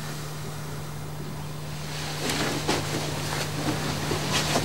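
A steady low hum under a noisy hiss, with a few soft rustles and knocks from about two seconds in as a pillow is pressed down on a person lying in bed.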